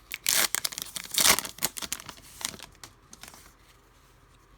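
Trading-card pack wrapper being torn open and crinkled: a few loud ripping, crackling bursts in the first second and a half, then lighter rustles and clicks that die away.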